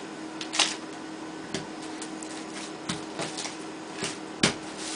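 Plastic cling wrap crinkling and crackling as it is pulled and folded by hand around a block of cheese, in irregular sharp crackles, the loudest about four and a half seconds in.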